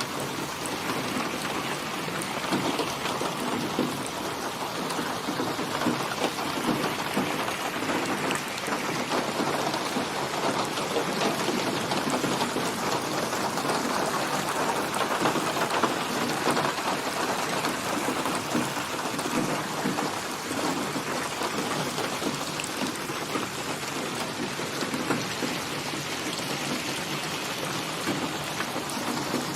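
Steady rain falling, a dense patter of drops on surfaces with a gently rising and falling intensity.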